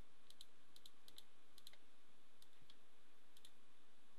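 Computer mouse button clicking, about half a dozen short press-and-release double clicks at irregular intervals, as points are set one by one with Photoshop's polygon lasso tool, over a steady faint hiss.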